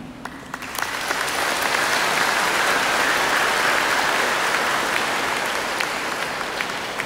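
Congregation applauding: a few scattered claps, then dense clapping that swells within about a second, holds steady, and starts to thin out near the end.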